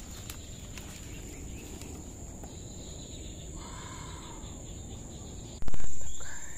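Steady high-pitched drone of insects over a low outdoor rumble, with a short bird call about halfway through. Near the end a sudden loud knock cuts in and fades over about a second.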